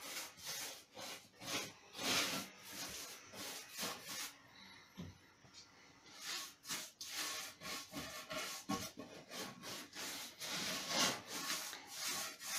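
A wide bristle paintbrush scrubbing back and forth over wooden bench boards, brushing on a wet coat of wood impregnant in quick, uneven strokes, about two a second.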